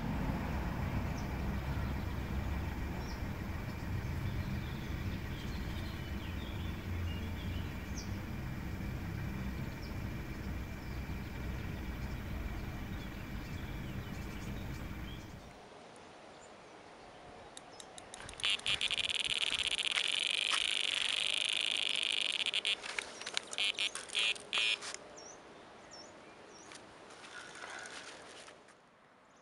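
Lakeside ambience: a steady low rumble for about fifteen seconds, then, after a break, a high, fast-pulsing chirr from wildlife calling for several seconds, fading out near the end.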